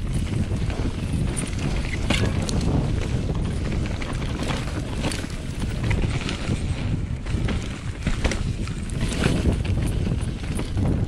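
Mountain bike, a Specialized Enduro Expert 29, descending a dirt forest trail at speed: wind buffeting the camera's microphone over the rumble of the tyres on dirt and leaves, with frequent irregular knocks and rattles of the bike over bumps and roots.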